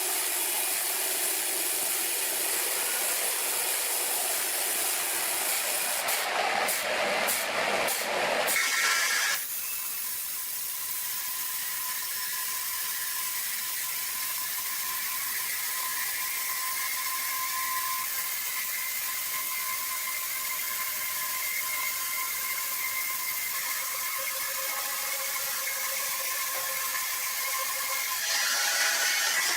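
Sawmill machinery running with a steady mechanical noise and a cluster of knocks about six to nine seconds in. It then changes abruptly to a steadier hum with a faint whine.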